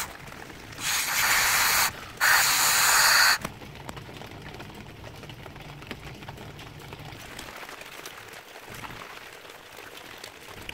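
Two hissing blasts from a pressurised spray nozzle, each about a second long, cleaning out the injector bore and bolt threads in the cylinder head. Faint scattered clicks follow.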